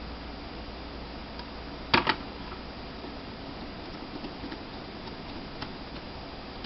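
Small screwdriver and screws worked into a laptop hard-drive caddy: faint scattered ticks, with a sharp double click about two seconds in.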